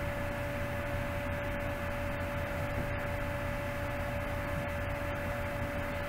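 A 2011 Ford Edge engine idling at normal operating temperature: a steady low hum with a constant thin whine above it.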